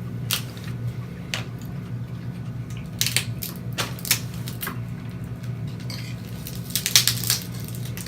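Snow crab leg shells cracking and crunching in irregular sharp snaps, loudest in a quick cluster about seven seconds in, over a steady low hum.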